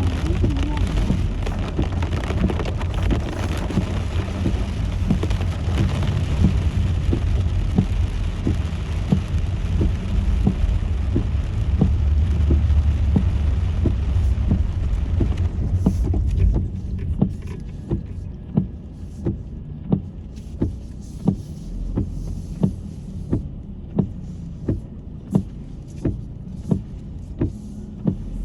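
Car cabin sound: steady road and engine rumble that drops off sharply about two-thirds of the way through as the car slows to a stop. Over it, a turn-signal indicator ticks evenly, about three ticks every two seconds.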